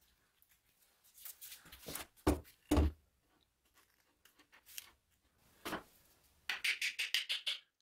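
Axe wedging: a glued wooden wedge is set into the slot of the handle in the axe head's eye. There is some scraping, then two heavy knocks, and from about two-thirds of the way in a fast run of light, ringing hammer taps drives the wedge home.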